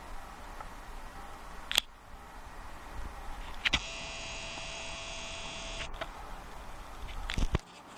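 Camcorder zoom motor whirring steadily for about two seconds midway as the lens zooms in, with a sharp click before it and a handling bump near the end.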